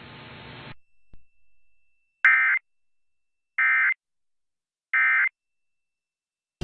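Emergency Alert System end-of-message data tones: three identical short bursts of warbling digital tones about 1.3 s apart, closing the AMBER Alert broadcast. A faint hiss cuts off under a second before them.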